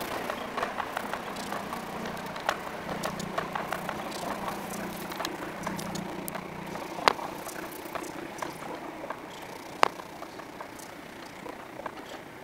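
Interior running noise of a class 319 electric multiple unit on the move: a steady rumble with a faint hum, broken by many sharp clicks and clacks from the wheels over the track, two of them louder at about seven and ten seconds. The noise grows gradually quieter.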